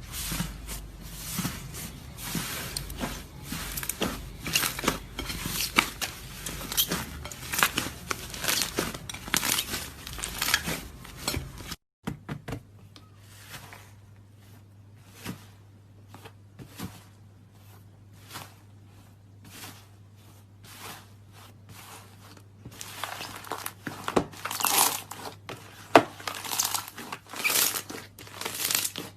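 Slime being squeezed and worked by hand, giving dense crackling and popping. About twelve seconds in it cuts off suddenly to a quieter stretch of scattered pops over a low steady hum, and the dense crackling picks up again near the end.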